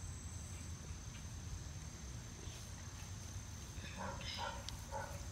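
Quiet outdoor ambience with a steady, thin high-pitched insect trill. A few faint spoken words come about four seconds in.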